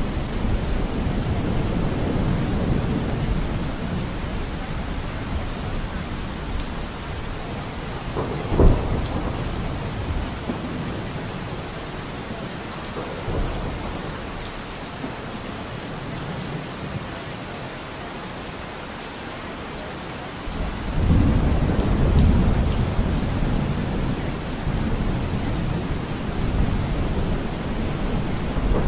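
Steady rain falling with rolling thunder. A sharp thunder crack comes about a third of the way in, and a long rumble swells up about two-thirds of the way through.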